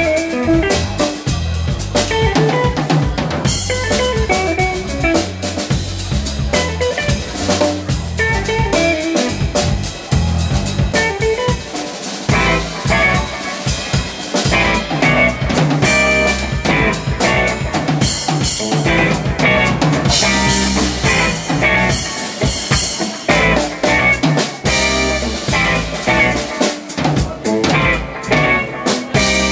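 A live instrumental trio of electric guitar, electric bass and a Sonor drum kit playing together, the drums prominent, with dense hits throughout.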